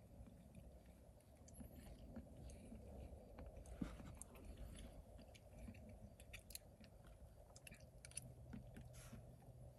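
Near silence with faint chewing of steak and small mouth clicks over a low hum.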